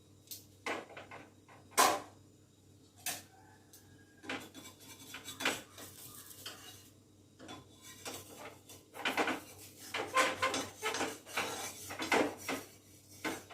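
Metal cookware and utensils being handled: irregular clinks, knocks and scrapes of pans and spoons, more frequent in the second half.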